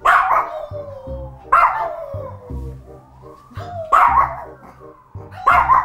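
Long-haired Chihuahua howling: four high yowls, each sliding down in pitch, set off by an ambulance siren, which the owner says he always howls along to. Background music with a steady beat underneath.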